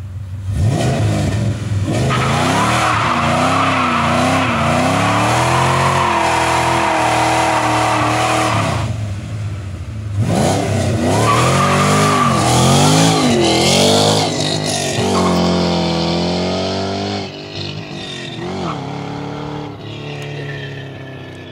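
Supercharged 2006 Mustang GT's 4.6-litre V8 revving up and down hard during a burnout, with the rear tyres spinning and squealing. It runs in two long stretches with a brief drop about nine seconds in, then fades near the end as the car pulls away.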